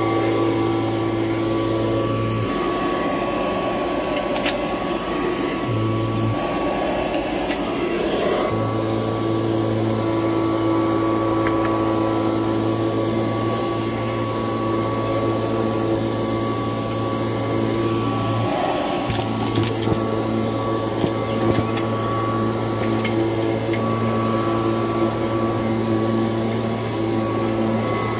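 Kirby Heritage II upright vacuum cleaner running steadily over a rug. Its motor hum shifts at times, with a few sharp crunching clicks from debris being picked up.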